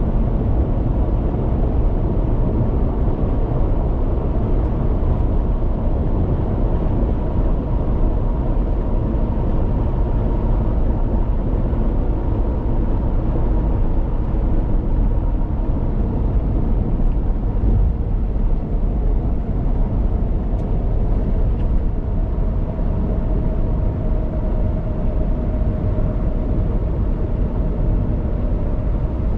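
Steady road and tyre noise with the engine of a car cruising at highway speed, heard from inside the car. A faint steady whine shifts lower a little past the middle.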